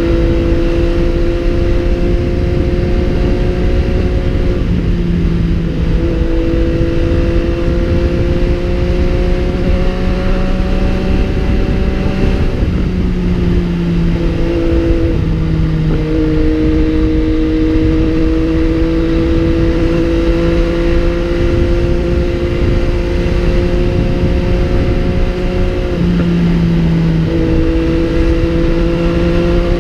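MV Agusta Brutale 800's three-cylinder engine under way. Its pitch climbs slowly, then drops sharply several times, over steady wind and road rumble.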